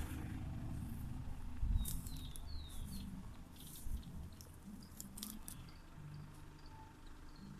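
Brief, high, falling bird chirps, several scattered through, with a few clicks over a steady low rumble.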